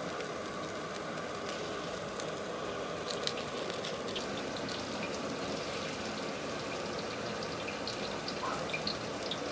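Kitchen noise: a steady hiss with scattered light clicks and a few brief high clinks, such as utensils against metal.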